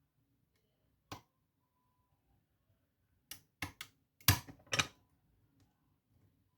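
Lock pick and tension wrench clicking against a pin-tumbler challenge lock: one click about a second in, then a quick run of five sharper metallic clicks, the fourth the loudest.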